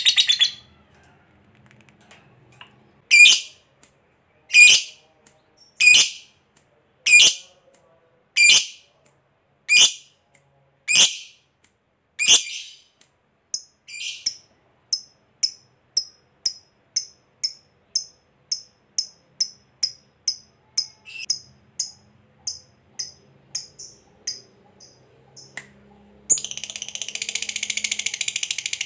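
Lovebird calling. A rapid chattering trill (ngekek) cuts off at the start, followed by a string of loud, sharp single calls about one a second, then a quicker run of softer chirps about two a second. Near the end another long, rapid chattering trill begins.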